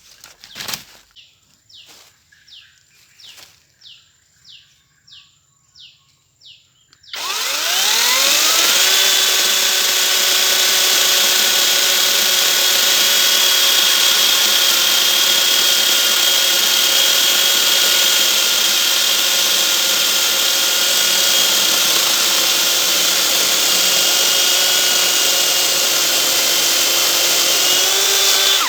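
Brushless 40-volt cordless chainsaw starting about a quarter of the way in, its electric motor whine rising quickly to full speed. It then runs at a steady high pitch for about twenty seconds before cutting off near the end.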